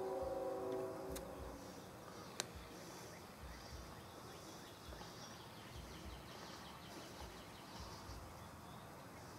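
Quiet outdoor background. A steady pitched hum fades out in the first second and a half, then a single sharp plastic click about two and a half seconds in as the mower's air-cleaner cover is handled. Faint high chirping repeats in the background.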